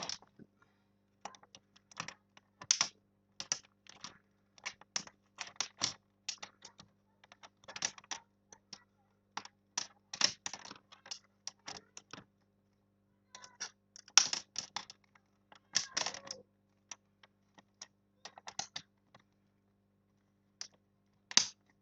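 Irregular plastic clicks, taps and snaps from the casing of a Dell laptop being closed back up after a screen repair, coming in uneven clusters with short pauses, over a faint steady hum.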